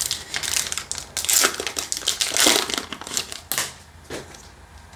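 Foil booster-pack wrapper crinkling and tearing as it is opened by hand, a run of rustling bursts for about three and a half seconds. After that come quieter rustles as the cards are handled.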